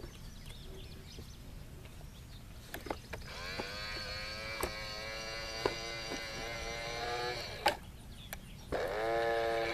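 Tonka Mighty Motorized Garbage Truck's motorized front forks whirring as they lift a toy dumpster up over the cab to dump it. A steady whine starts about three seconds in and runs for about four seconds, with a few clicks, and a second whine rises in near the end.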